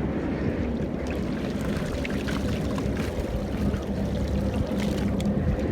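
Water rushing and splashing along a small boat's hull, over the steady hum of its motor.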